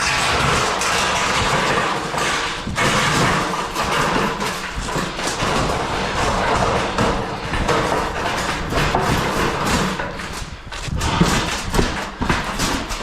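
Roofing work noise of a long metal roof panel being carried and handled: repeated thuds and knocks over a steady rush of noise.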